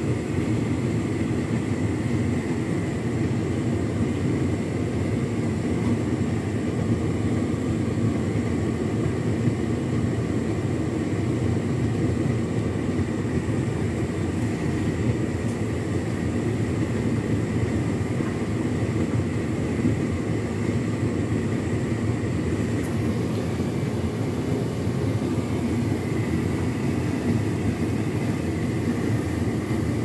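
Hotpoint Ultima S-line tumble dryer running steadily on its turbo dry cycle: the motor, fan and turning drum make a constant drone with a faint high whine over it as the clothes tumble.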